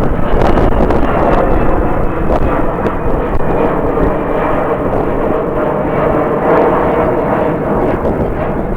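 Jet airliner engines running with a steady roar and faint whine, mixed with strong wind buffeting the microphone.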